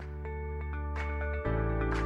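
Podcast closing music: soft, held chords over a deep bass note that changes about one and a half seconds in.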